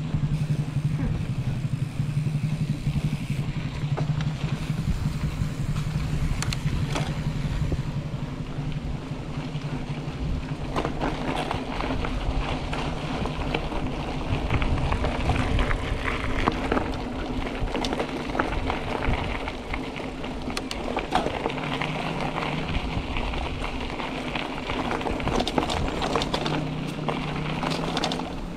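Riding noise from a mountain bike on a trail: continuous rumble of tyres and wind on the microphone with a steady low hum. From about ten seconds in there are many rattling clicks, as over rough ground.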